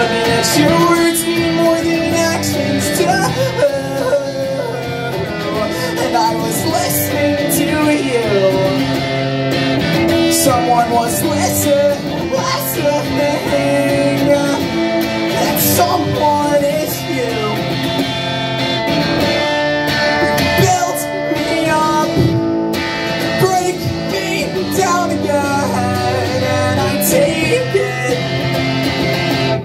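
Solo electric guitar played live, a continuous rock song on a red solid-body electric guitar, with some singing over it.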